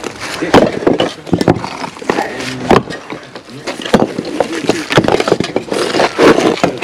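Old bricks being pulled off a crumbling wall and dropped onto a pile: irregular loud clacks and knocks of brick striking brick, with a voice in the background.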